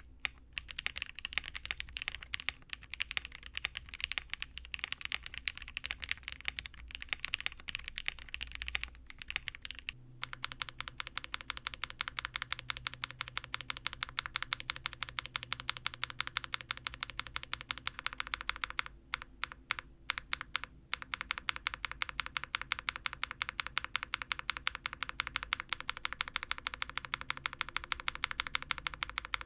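Typing on a mechanical keyboard fitted with Cherry-profile keycaps. About ten seconds in it changes to a single key, the backspace, pressed over and over in a fast, even rhythm of clicks, with short pauses a few times.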